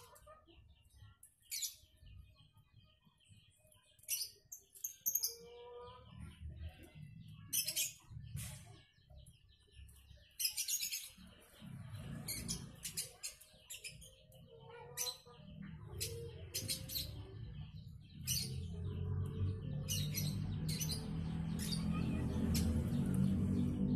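Birds chirping, with scattered short clicks and scrapes from hand-working a coconut bonsai's husk with a small tool. Music fades in and grows louder over the last several seconds.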